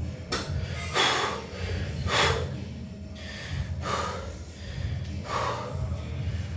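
A man's hard, breathy exhalations, about half a dozen spaced bursts, from the strain of holding flexed bodybuilding poses. A low steady hum runs underneath.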